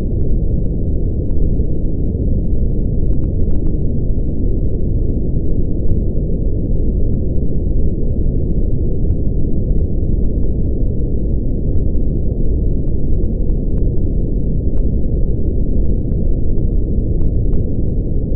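Brown noise: a steady, deep, rumbling noise, strongest in the lowest pitches, with no high hiss at all.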